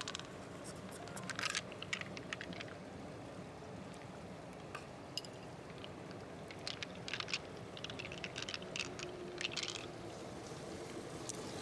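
Wet squelching and short clicks as fingers dig pearls out of the flesh of a giant pearl clam and set them in its shell. The clicks come in two clusters, about a second in and again from about seven seconds.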